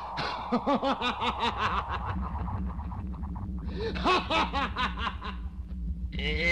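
A man's villainous laughter: a quick string of "ha-ha-ha" laughs, then a second run starting about three and a half seconds in, over a low steady drone. A loud, shrill sound cuts in right at the end.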